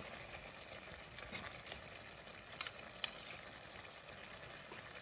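Chicken and potato stew simmering with a faint steady sizzle in a square pan while a metal serving spoon stirs and scoops the sauce, with two sharp metal clinks of the spoon about two and a half and three seconds in.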